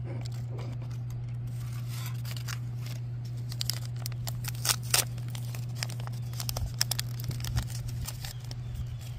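Thin foil blind-bag wrapper crinkling and tearing as hands pull it open: a run of sharp crackles, loudest about five seconds in, over a steady low hum.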